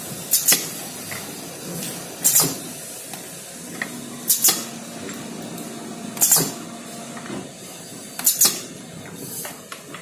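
Rotary bottle filling, plugging and capping machine cycling: its pneumatic cylinders let out short, sharp hisses of air about every two seconds, each a quick double puff. A faint low machine hum runs under them for a few seconds in the middle.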